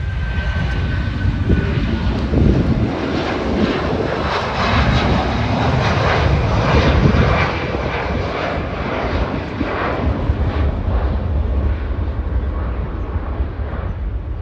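Twin-engine widebody jetliner's engines at takeoff thrust as it lifts off and climbs away: a loud, rough jet roar that swells to a peak about seven seconds in and then eases slightly. A faint high whine slides a little down in the first two seconds.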